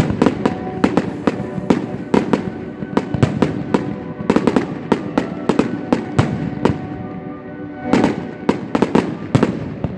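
Fireworks going off in rapid, irregular sharp bangs, several a second, with a denser cluster about eight seconds in. Music with held notes plays underneath.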